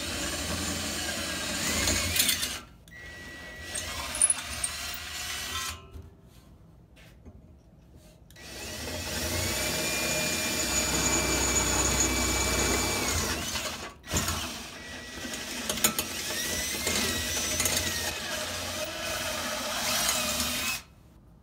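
Cordless drill running a 1/4-inch twist bit through aluminum tubing to open up pilot holes: a steady motor whine in three long runs with short pauses between, the longest about six seconds, the pitch dipping and recovering as the bit bites.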